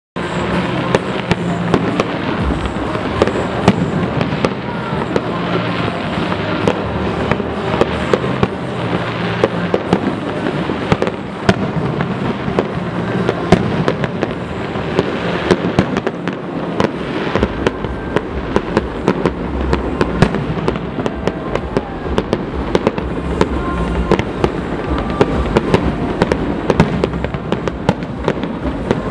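Fireworks display: a dense, unbroken run of sharp bangs and crackles from aerial shells and fountains.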